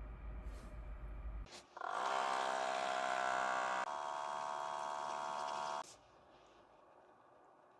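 Outin Nano portable espresso machine's pump running, a steady buzzing hum that starts about a second and a half in after a click, drops slightly in level partway through and cuts off about two seconds before the end, as it pushes hot water through a tea capsule.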